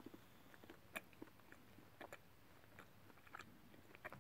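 Faint mouth sounds of someone chewing a bite of Belgian praline seashell chocolate: a few soft clicks, roughly a second apart, over near silence.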